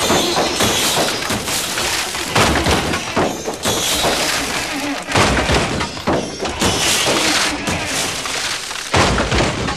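Edited sound collage of car-scrapyard recordings: a dense clattering din with heavy crashes and thuds every second or two, and glass breaking.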